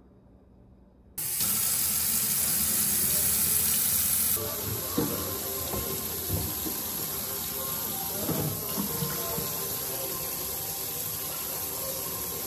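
Kitchen faucet running full into the sink, cutting in suddenly about a second in as a steady splashing hiss. There are a few light knocks from bottles being handled at the counter.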